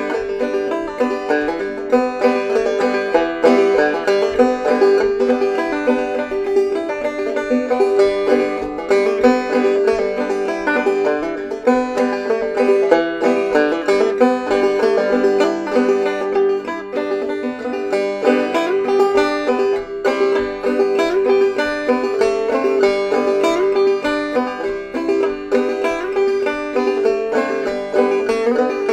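Banjo played clawhammer style: an old-time tune of quick, steady plucked notes running on without a break.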